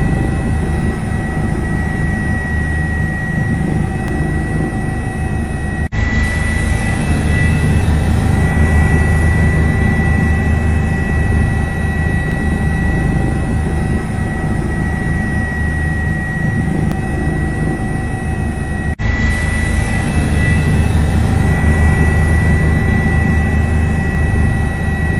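Loud, steady mechanical drone with a deep hum and a high, steady whine, like an aircraft engine. It breaks off briefly twice, where the footage is cut.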